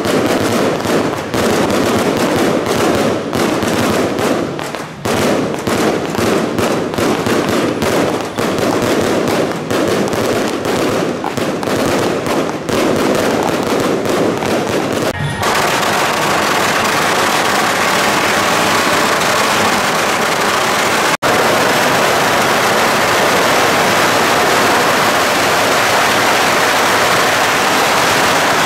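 Strings of firecrackers going off in a rapid, dense crackle of bangs for about fifteen seconds. About halfway through, the sound changes abruptly to a steady rushing noise.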